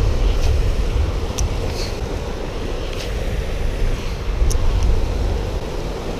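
Steady low rumble of traffic from the highway overpass, mixed with wind buffeting the microphone, with a few light clicks scattered through it.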